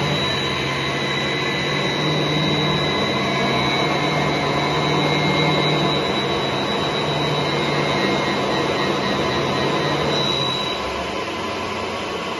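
Three-phase induction motor running on a just-repaired Allen-Bradley PowerFlex 755 variable-frequency drive during its test run: a steady electric hum with a thin high whine over a fan-like rush. About ten and a half seconds in, the hum and whine fall away while the rush carries on.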